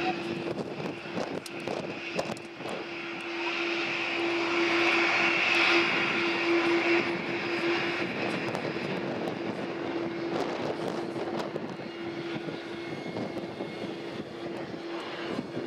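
Airbus A330-200 jet engines running at taxi power as the airliner rolls past: a steady hum over a rushing hiss that swells from about four to seven seconds in.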